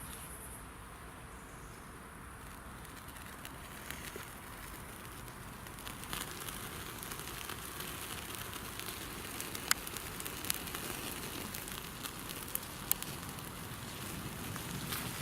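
Campfire of sticks crackling as it catches, growing louder after a few seconds, with a few sharp pops.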